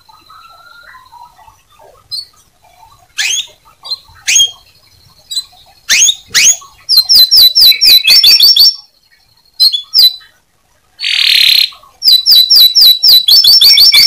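Domestic canary singing: after a quiet start, a few sharp falling whistled notes, then fast rolling trills of repeated notes at about eight a second, broken about two-thirds of the way through by one short harsh rasp before the trill resumes.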